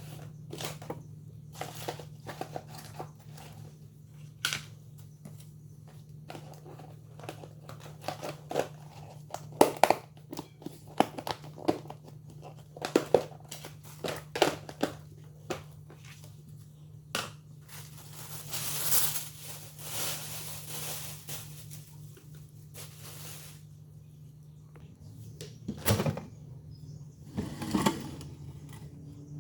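Things being handled and put away in a refrigerator: plastic packaging crinkling and rustling, with containers clicking and knocking at irregular intervals over a steady low hum.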